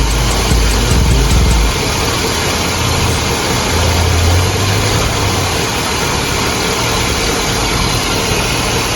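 2005 Cadillac Escalade's V8 engine running steadily at idle. A deep low rumble sits over it for the first second and a half or so, then stops.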